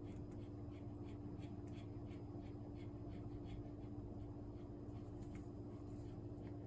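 Keys on a System76 Oryx Pro laptop keyboard pressed in an irregular string of light clicks, about three a second, over a steady low hum.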